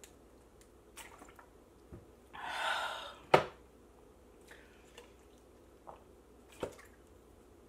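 Drinking from a plastic water bottle: small swallowing clicks, a breathy exhale about two and a half seconds in, then a sharp knock as the bottle is set down on the table. Drinking resumes near the end with another small click.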